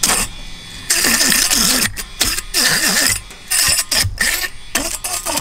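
Electric fish scaler running with its rotating head pressed against a fish's side, stripping and flinging off scales. It makes a rasping mechanical whir in several loud bursts, its pitch wavering up and down as the head bites.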